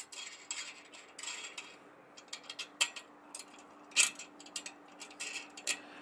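Irregular metallic clicks and clinks from a microwave dish antenna's metal pole-mount clamp as its bolts are loosened and the mount is worked by hand, the loudest clink about four seconds in.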